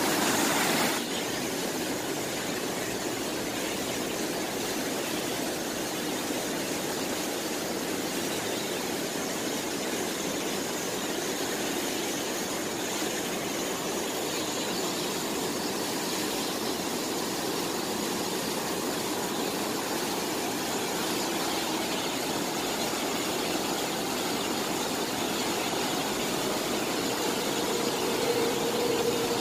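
Steady rushing of water pouring from a bridge waterfall into a canal, mixed with the hum of traffic. A steady low hum joins near the end.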